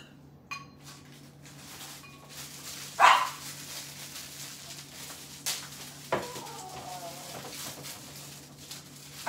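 A dog barking: one sharp bark about three seconds in and another right at the end, with a few light clicks between.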